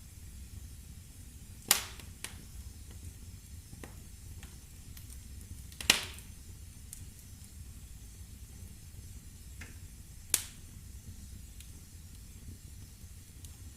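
Wood fire in a fireplace crackling: three sharp pops from the burning logs, the loudest about six seconds in, among fainter crackles over a low steady rumble.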